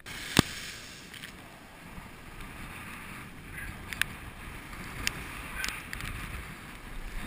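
Rough surf washing over rocks with wind on the microphone, a steady rushing noise. A sharp click about half a second in, and a few fainter clicks later.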